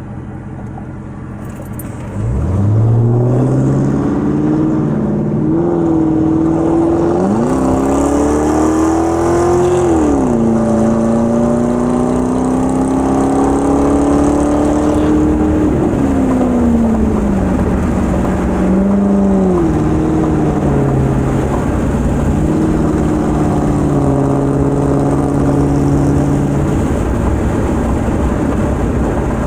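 2000 Ford Crown Victoria's 4.6-litre V8 running with no catalytic converters and no mufflers, heard from inside the car with the windows down. About two seconds in the exhaust comes up suddenly as the car pulls away, climbing in pitch and dropping back at each upshift, twice. It then settles into a steady cruising drone.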